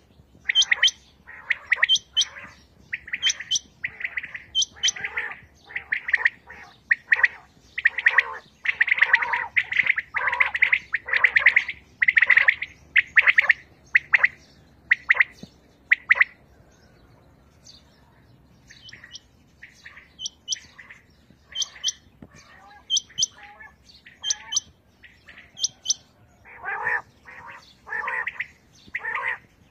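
Several caged quails calling: rapid, overlapping short chirps, some sharp and high, others lower and fuller. The calls come thick through the first half, pause for a few seconds about halfway, then return, sparser at first and denser near the end.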